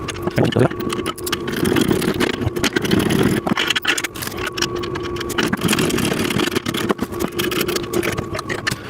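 Power drill running steadily with a constant hum while driving the bolts in, with frequent small clicks and rattles of metal parts.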